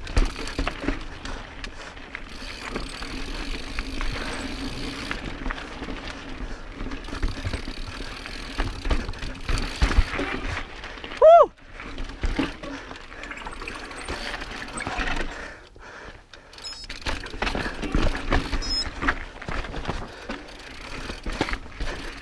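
Mountain bike rolling over rocky singletrack: steady tyre and trail noise with many small clicks, knocks and rattles from the bike. A short shout about eleven seconds in.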